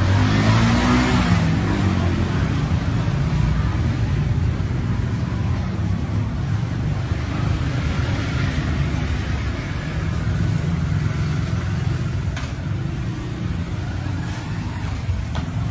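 Street traffic: motor scooters and cars passing with a steady low rumble, one scooter engine passing close at the start and another about eight seconds in.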